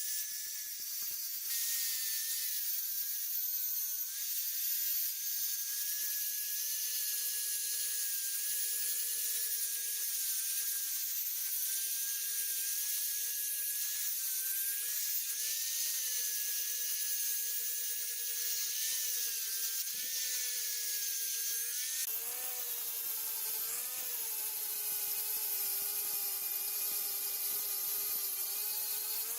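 A small high-speed power tool with an abrasive on the knife's metal: a steady motor whine that wavers in pitch as the tool is pressed on, over a hiss of grinding. The grinding turns rougher and heavier about two-thirds of the way through.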